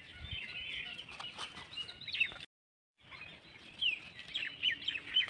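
Birds chirping and calling outdoors, with a few light clicks. The sound drops out completely for about half a second near the middle.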